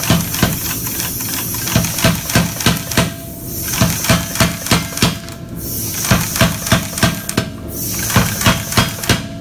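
Big Blu 110 pneumatic power hammer striking a hot 1084 steel bar on its combo dies, rough-forging it. It hits about three to four blows a second in runs of a couple of seconds, over a steady hiss that stops briefly between runs.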